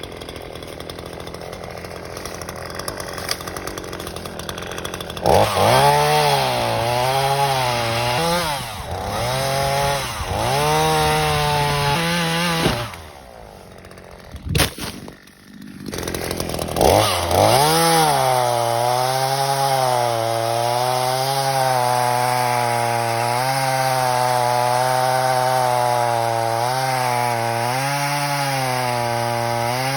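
Craftsman 18-inch two-stroke chainsaw running at high revs and cutting through a downed hardwood tree, the engine pitch wavering up and down as the chain bogs under load. It pauses once about halfway through, then cuts steadily again until the end.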